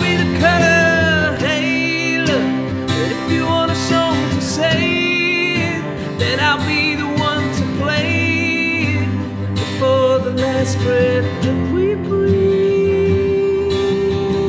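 Live music: a man singing while playing an acoustic guitar, holding one long note near the end.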